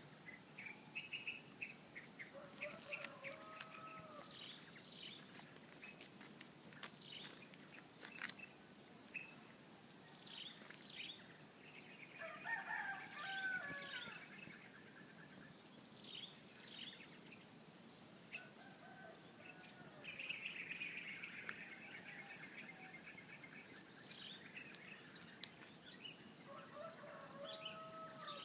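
Roosters crowing four times at intervals, the loudest about halfway through, among chirping small birds over a steady high-pitched insect drone.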